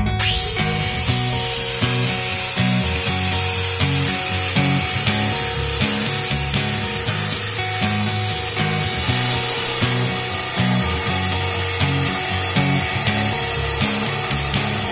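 Angle grinder with a thin cut-off disc running and cutting through an old rusty steel circular saw blade: a steady high grinding hiss that gets a little louder about nine seconds in. Background music with a low beat plays underneath.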